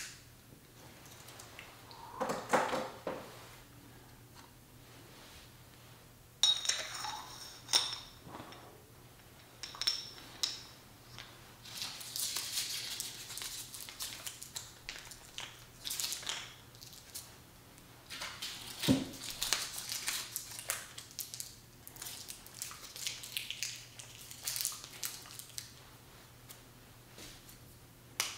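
Scattered prop-handling sounds of a metal tube: light clinks, taps and rustles, with a short metallic ring about six and a half seconds in.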